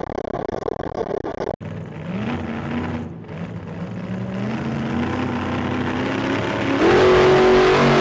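Steady road noise cuts off abruptly about a second and a half in. A dubbed-in car engine sound effect follows, accelerating, its pitch rising in steps like gear changes. Near the end the sound jumps suddenly louder and brighter.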